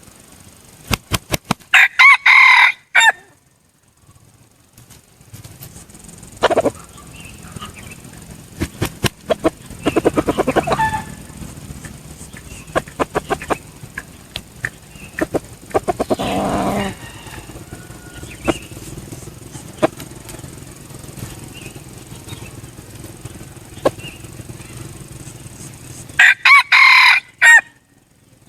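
Red junglefowl roosters crowing twice, a short broken crow about two seconds in and another near the end. A quick run of sharp taps comes just before the first crow, with fainter rustling and scattered calls between the two crows.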